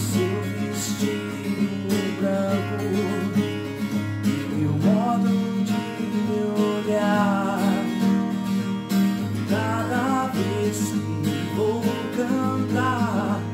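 Music: an acoustic guitar strummed through an instrumental break of a song, with a few wavering wordless vocal phrases over it.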